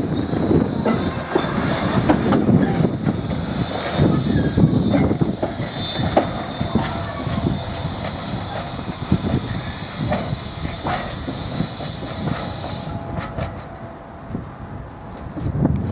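A freight train of covered car-carrier wagons rolling past at low speed, its wheels rumbling and clicking over the track with a steady high-pitched wheel squeal. The squeal cuts off about 13 seconds in and the rumble fades as the last wagon draws away.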